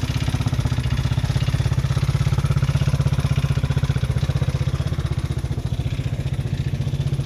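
GY6 150cc single-cylinder four-stroke engine of a small UTV idling steadily with an even, rapid pulsing beat, just started on a cold day.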